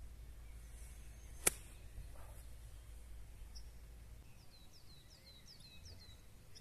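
A single sharp click of a golf iron striking the ball on a chip shot from the rough, about a second and a half in. In the second half a bird sings a quick series of short falling chirps.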